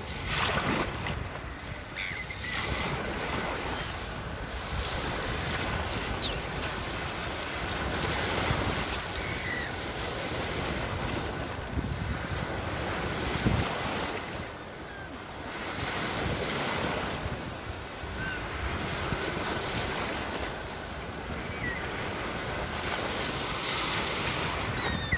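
Sea waves breaking and washing ashore, a steady rush that swells and eases every few seconds, with a few short, faint high bird calls over it.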